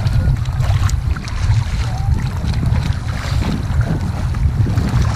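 Choppy sea water sloshing and splashing around a swimmer and a sea kayak at water level, under a heavy, gusting low rumble of wind on the microphone.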